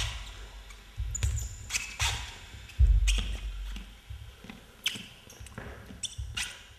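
A dancer's footfalls and landings on a stage floor: several heavy thuds, the loudest about three seconds in, with lighter sharp steps and scuffs between them.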